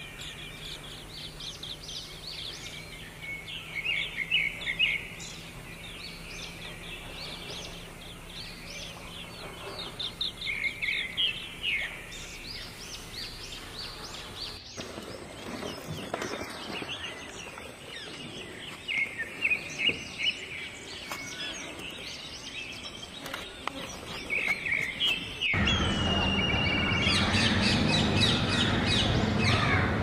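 Wild birds chirping and calling in bursts of short, rapid notes every few seconds, over a steady outdoor background. About 25 seconds in, the sound changes suddenly to a louder, busier chorus of calls.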